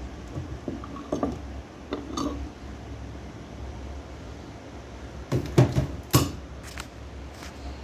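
A few light clinks of hard objects being handled, then a cluster of louder knocks and clatters about five to six seconds in, over a steady low hum.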